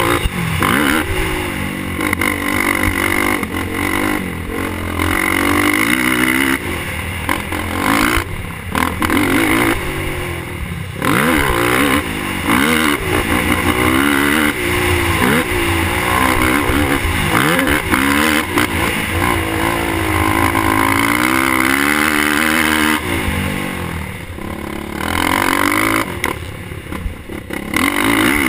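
Suzuki LTR450 sport quad's single-cylinder four-stroke engine ridden hard on a motocross track, its pitch climbing and falling over and over with each burst of throttle and lift-off. It drops lower and quieter for a few seconds near the end.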